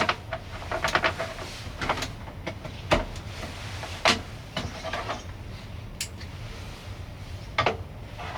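Irregular clicks, knocks and clatter of things being handled, the loudest knocks near the start, about three and four seconds in, and near the end, over a steady low hum.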